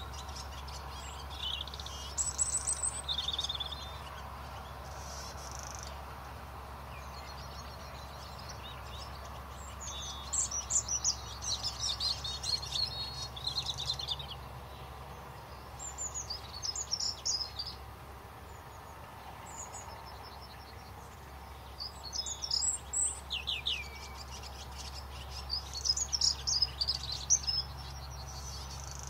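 Small birds chirping and trilling in short clusters every few seconds, over a steady low background hum.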